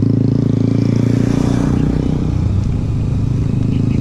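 A small motorcycle engine running close by as it passes, a steady low hum that turns rougher and a little softer after about two seconds.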